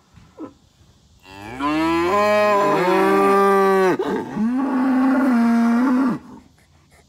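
Cattle mooing: two long, loud moos, the first rising in pitch at its start before holding steady, the second steady.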